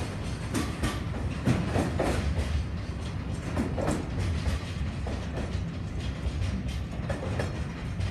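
Freight train's container wagons rolling past on jointed track: a steady low rumble of wheels with irregular sharp clicks over the rail joints, the clicks growing sparser in the second half as the train moves away.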